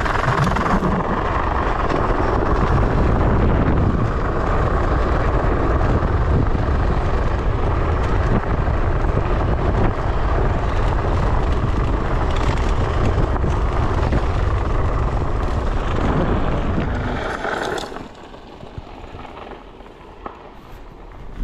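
Wind buffeting the microphone: a loud, rumbling rush with no steady tone in it, dropping away sharply near the end.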